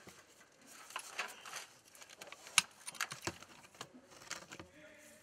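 Light, scattered clicks and scrapes from a large hand crimping tool being worked on a brass fitting on plastic pipe, with one sharper click about two and a half seconds in.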